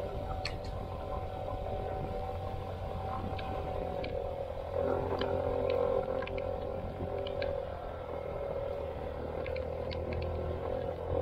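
Small scooter engine running steadily on the ride, its note shifting about five seconds in, with a low hum and scattered light clicks.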